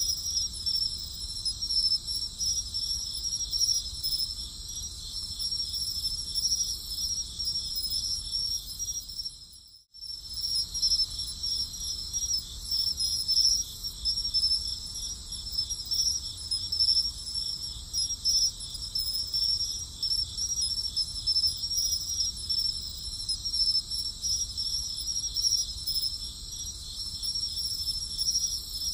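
Chorus of crickets chirping steadily in a high pitch. It briefly fades out and back in about ten seconds in.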